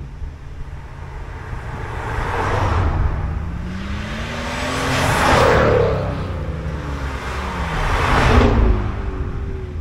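Maserati engines and exhausts accelerating past, three times in a row. The engine note climbs in pitch into each loud swell and drops away after it, the loudest about halfway through and near the end.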